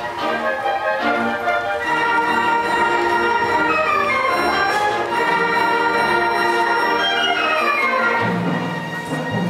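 Orchestral music playing, with two falling runs of notes in the middle and a low held note coming in near the end.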